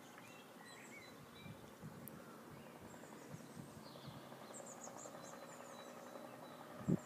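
Small birds chirping in open countryside, short scattered calls over a faint steady background hum. A single short low thump just before the end is the loudest sound.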